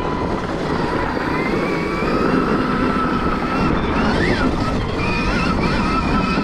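Stark Varg electric dirt bike's motor whining while riding, its pitch rising with speed and briefly rising and falling about four seconds in, over wind on the microphone and tyres on gravel and dirt.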